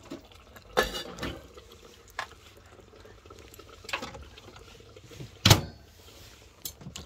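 Kitchen handling sounds: a few separate clicks and knocks, the loudest about five and a half seconds in, as a steel pot lid is lifted and a mechanical microwave's timer dial is worked.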